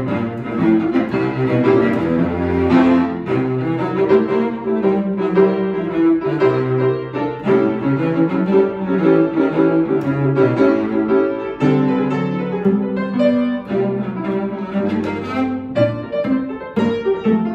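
Cello and piano duet: the cello plays a sustained bowed melody over flowing piano accompaniment.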